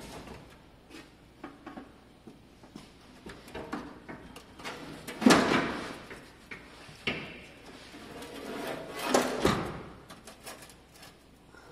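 An aftermarket flat fender being pushed and shifted against a Jeep CJ7's body while it is fitted: irregular scraping and knocking, loudest about five seconds in and again near nine seconds. The fender is catching on something and will not seat.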